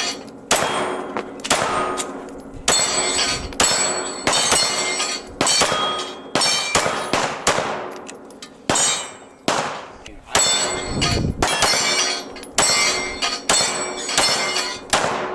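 A steady string of single gunshots, about twenty, one or two a second with some short pauses. Each shot is followed by a metallic ringing that dies away.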